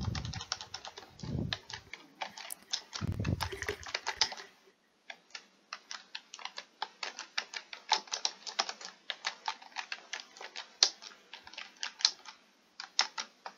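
Computer keyboard being typed on: a quick run of keystrokes, pausing briefly about five seconds in, then carrying on. A few dull low thumps come in the first four seconds.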